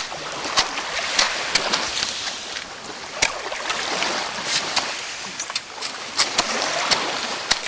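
Shovels scraping and crunching into oil-soaked beach gravel, with clumps of oily sludge dropped into white sacks. Stones clink sharply every so often over a continuous scraping noise.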